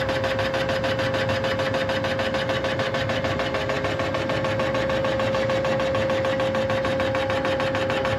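Rottler CNC line-boring machine running while it bores the main bearing bores of a Mopar 512 stroker block: a steady whine with a fast, even pulsing underneath.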